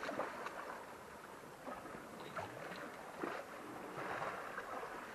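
Sea water lapping and sloshing against the foot of a rock cliff: a quiet, even wash with a few faint small splashes and knocks.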